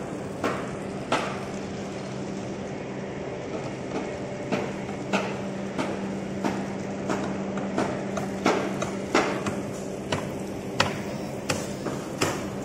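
Repeated hammer blows at an irregular pace, about one or two a second, over a steady low machine hum.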